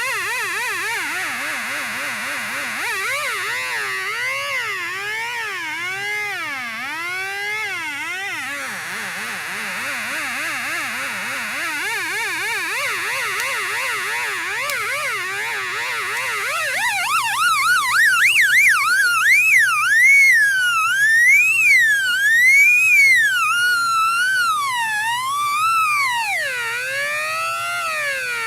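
Two-555-timer electronic sound effects generator: a pitched tone with overtones warbling rapidly up and down, a second 555 timer sweeping it with a triangle-like wave. Its overall pitch, set by light like a theremin, wanders low in the first half, then climbs higher and louder about halfway in, with slower, wider swoops, and drops again near the end.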